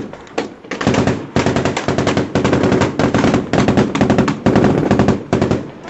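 Automatic machine-gun fire in long, rapid bursts with short pauses between them, starting about a second in.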